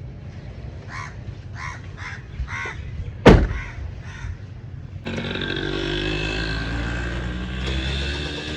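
Crows cawing, about six calls in a row. A single sharp knock, the loudest sound, comes about three seconds in. About five seconds in, a steady mechanical drone from the old Suzuki FX car begins.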